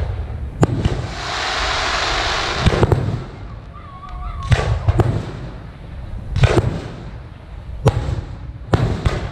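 Aerial firework shells launching and bursting: a string of sharp bangs, roughly one a second, with a rushing hiss that lasts nearly two seconds starting about a second in.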